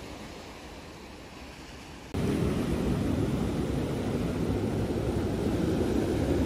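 Wind on the microphone and small waves washing onto a pebble beach: a steady rush that jumps much louder and deeper about two seconds in.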